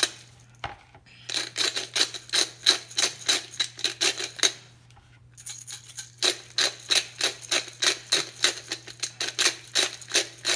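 Pepper grinder being twisted to crack black pepper: rapid, even clicking of about five clicks a second, in two runs with a pause of about a second and a half between them.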